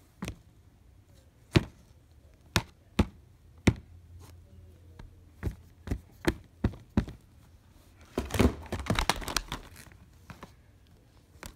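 Hard plastic game cases being handled, giving about a dozen sharp clicks and knocks. About eight seconds in comes a second or so of rustling and crinkling.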